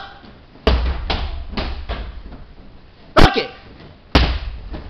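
Karate punches and kicks smacking handheld target boards, a series of sharp smacks that ring briefly in the hall. The loudest come about two-thirds of a second in, about three seconds in and about four seconds in. The one at three seconds has a short shout on it, a kiai.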